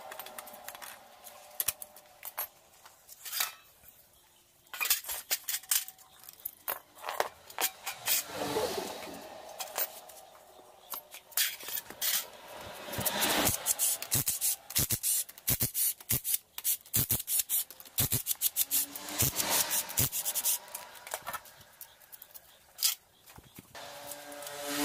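Metal hand tools working on a Honda Verza motorcycle engine during cam chain replacement: irregular clicks, clinks and scrapes of wrench and socket work, coming in several bursts with quieter gaps between.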